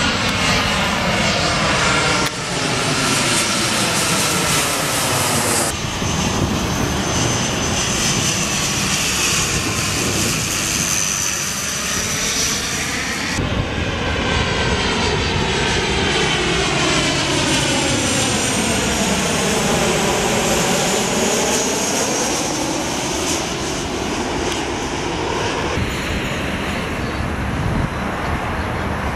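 Airliners passing low overhead on final approach with landing gear down, their engines giving a steady loud rumble with a high whine and a slow sweeping, phasing change in tone as each plane moves overhead. The sound changes abruptly several times where passes of different planes are spliced together.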